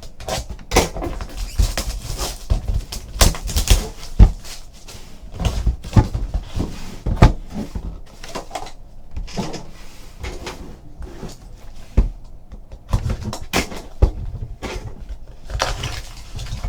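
A trading card box and its packs being handled and opened on a tabletop: an irregular run of knocks, taps and rustles from the packaging.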